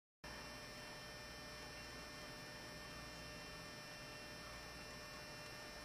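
Faint, steady room tone: a low electrical hum under hiss, with a few thin, steady high whining tones. It cuts in abruptly from dead silence just after the start.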